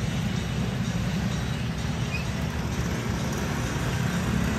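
Steady outdoor town ambience: a low rumble of distant road traffic with an even hiss above it.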